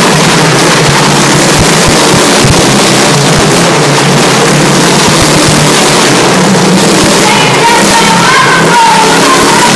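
Motorcycle engine running at steady high revs as the bike circles the vertical wooden wall of a Wall of Death drum. The sound is loud and heavily distorted. Wavering higher tones join in from about seven seconds in.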